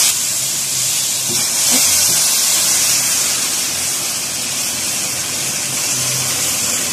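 Hot sugar syrup poured into semolina roasting in hot ghee, hissing loudly and steadily as it boils up in a cloud of steam.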